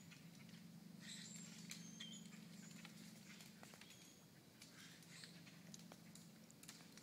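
Faint outdoor fall ambience: scattered light ticks and patters, a few short high chirps, and a low steady hum underneath.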